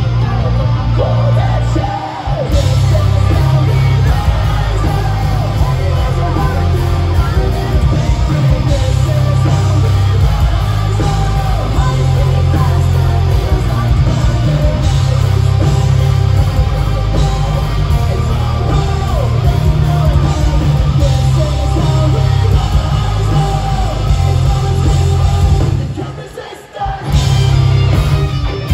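Live hard rock band playing loud, with heavy bass, guitars and a singing, shouting vocal. The music drops away briefly about two seconds before the end, then comes back in.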